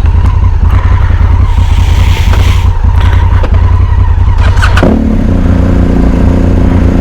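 Motorcycle engine running steadily at idle. About five seconds in there is a knock, and after it the engine's even hum comes through more cleanly.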